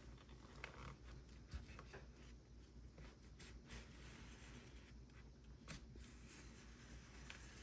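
Faint scratching with a few small clicks: a 9 mm Olfa utility knife blade cutting through packaging.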